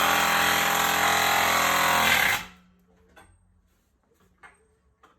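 Craftsman 1/2-inch impact wrench hammering as it tightens a water heater's anode rod back into the tank. It runs steadily and stops suddenly about two and a half seconds in.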